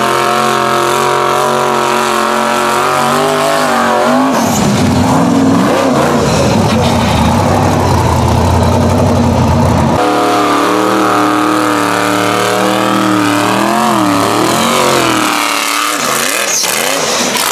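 Rock bouncer buggy engine held at high revs, steady for a few seconds. A rougher, noisier stretch runs through the middle, then the steady note returns and wavers and drops away near the end.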